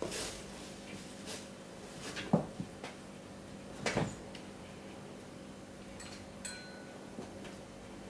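Two Burmese kittens play-fighting: scuffling with a handful of short thumps and knocks as they tumble on the rug and into a hard-shell backpack, mostly in the first four seconds.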